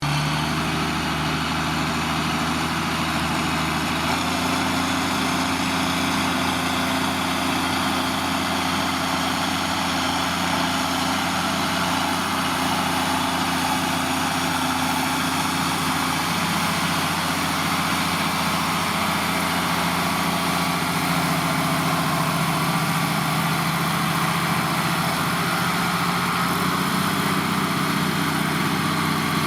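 New Holland tractor's diesel engine running steadily while pulling a plough, its note shifting slightly a few times.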